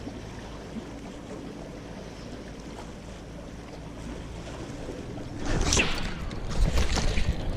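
Wind on the microphone and sea water lapping around the fishing spot, with a faint steady low hum. About five and a half seconds in, louder irregular rustling and knocks start up.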